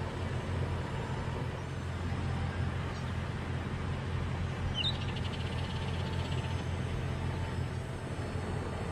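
Steady low rumble of motor-vehicle noise, with one short high chirp about five seconds in.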